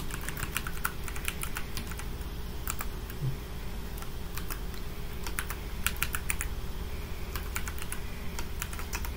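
Computer keyboard typing in short runs of keystrokes with pauses between them, as a username and then a password are entered.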